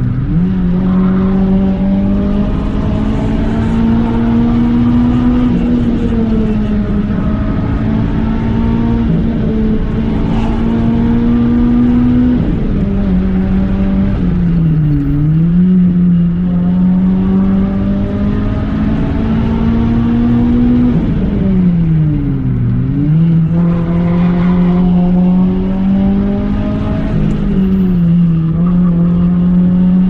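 Renault Clio 3 RS 197's naturally aspirated two-litre four-cylinder engine pulling hard uphill, heard from inside the cabin. Its held note falls away and climbs back three times (near the start, about 15 seconds in and about 22 seconds in) as the driver lifts off and accelerates again through the bends.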